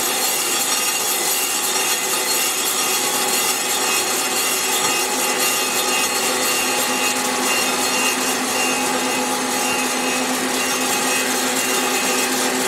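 Storm Vulcan 15A crankshaft grinder's wheel taking light cuts on the TIG weld build-up of a Willys 134 crankshaft's rear main seal surface, grinding it down to size. It makes a steady grinding hiss with the machine's hum underneath.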